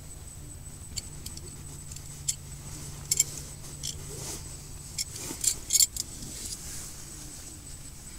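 A belt buckle jingling in short metallic clinks as a belt is taken off, with rustling of blankets, loudest about five to six seconds in, over a steady low hum.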